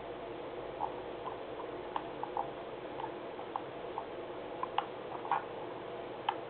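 Computer mouse scroll wheel clicking in irregular runs of soft ticks, about a dozen in all, over a steady background hum.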